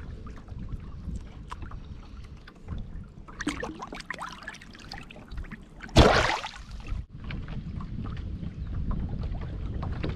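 A hand plunging into river water beside the boat, letting a small caught fish go: one loud, sudden splash about six seconds in, lasting about a second. Before it, small handling clicks and rustles; throughout, a low rumble of wind on the microphone.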